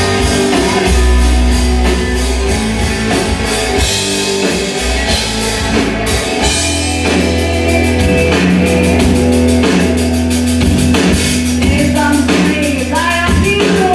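Rock music with singing, drums and guitar, played loud through an Audiomobile AR-3 amplifier rack and speakers, with a heavy steady bass.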